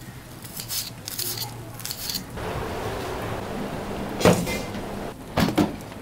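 Kitchen food-preparation sounds: a knife cutting onion on the counter with light taps. Then comes a steady hiss, with a sharp knock of a plastic container against steel cookware about four seconds in and a couple more knocks near the end.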